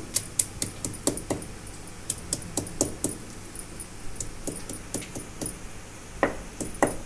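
A stone muller (batta) pounding ginger and green chilli on a sil grinding stone: irregular sharp stone-on-stone taps, several a second.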